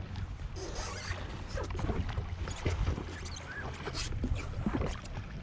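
Sea water sloshing and splashing close to the microphone, with many small irregular splashes over a steady low rumble.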